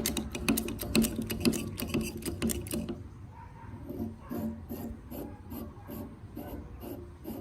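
Hand tool scraping or rasping on metal: fast, dense strokes at first, then from about three seconds in, slower even strokes about two and a half a second.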